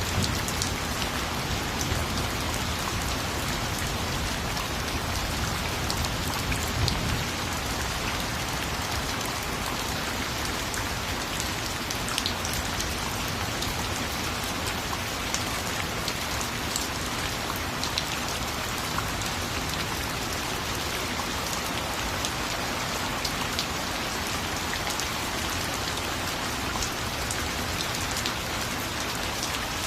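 Steady rain falling, an even hiss with many individual drops pattering on a surface.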